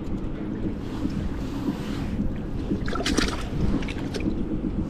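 Steady low rumble of wind buffeting the microphone over rushing river water, with a short cluster of sharp clicks about three seconds in.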